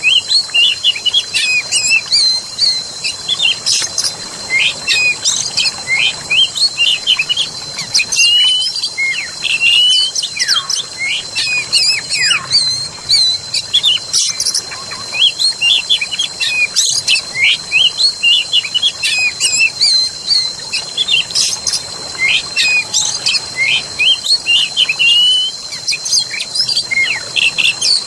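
Forest birdsong: many birds chirping and trilling in quick, overlapping phrases, with a steady high-pitched tone underneath and a faint wash of running water.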